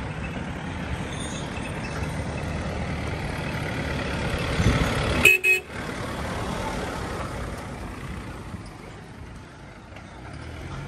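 An off-road SUV's engine grows louder as it drives up and passes close by, with a brief horn toot as it passes about five seconds in, then its engine fades as it pulls away.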